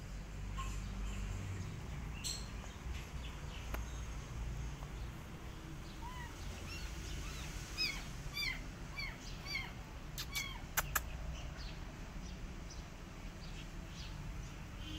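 Small birds chirping in quick, short, falling notes, thickest from about six to ten seconds in, over a steady low outdoor rumble. A few sharp clicks come about ten seconds in.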